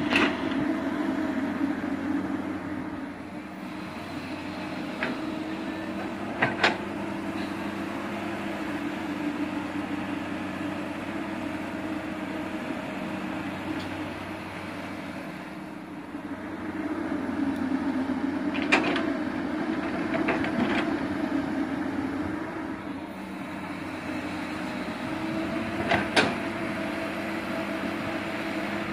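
Diesel engine of heavy earthmoving machinery running steadily, growing louder twice as it works under load. Four sharp clanks stand out, the loudest about a quarter of the way in and about two thirds of the way in.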